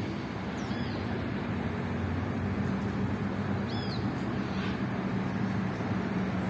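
Steady low rumble of road traffic, with a bird giving short high chirps three times.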